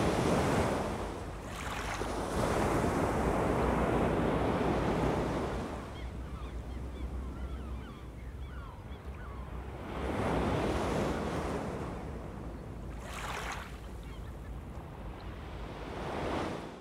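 Gulf of Mexico surf: small waves breaking and washing up the sand, swelling and fading every few seconds, with wind rumbling on the microphone.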